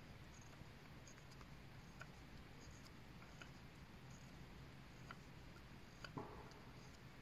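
Knife shaving wood off a hazel stick: faint, scattered small scrapes and ticks, with one louder scrape about six seconds in.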